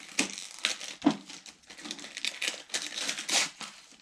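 Gift-wrapping paper being torn open and crumpled by hand: an irregular run of crinkling rustles and rips.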